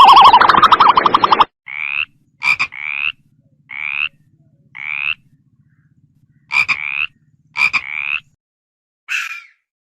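Frogs calling: a loud, fast pulsed trill that stops about a second and a half in, followed by a series of short pulsed croaks roughly once a second, with a few sharp clicks among them.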